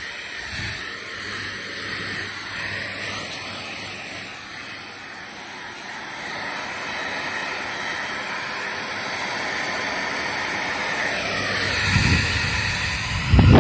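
Hair dryer running steadily, blowing air, with a louder burst near the end.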